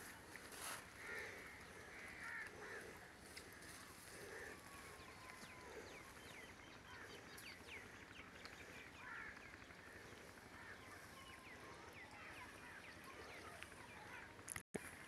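Faint bird calls across open farmland: repeated short calls and thin chirps over a quiet steady background, with a split-second dropout near the end.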